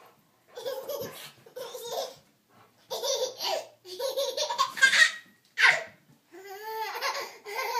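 Toddler laughing hard in repeated short bursts of belly laughter, with a longer, rising-then-falling squeal near the end.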